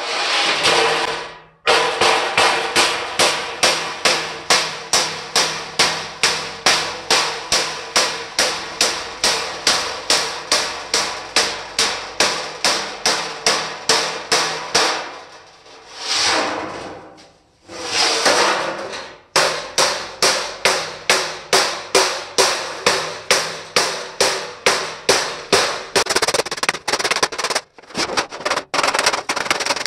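Rapid, steady hammer blows, about three a second, flattening a dented sheet-metal panel on a metal-topped workbench to beat the damage out of it. The hammering breaks off briefly around the middle, where a swelling rush of noise takes its place, and then resumes.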